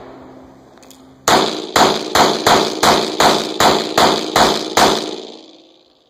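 Taurus PT100 .40 S&W pistol fired rapidly, about ten shots at roughly three a second starting just over a second in, with an echo fading out after the last shot.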